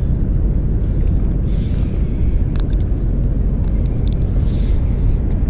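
Wind buffeting the microphone in a steady, loud low rumble, with a few sharp clicks about two and a half and four seconds in.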